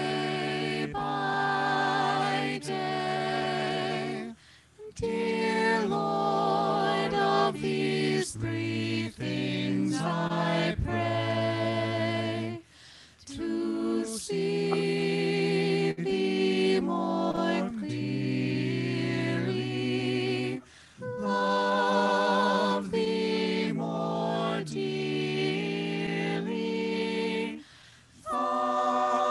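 A quartet of two men and two women singing unaccompanied, in several voice parts, in long phrases with short breaks between them.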